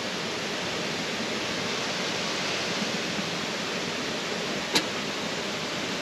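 Shallow river water rushing over rocks, a steady, even rush with one short click a little before the end.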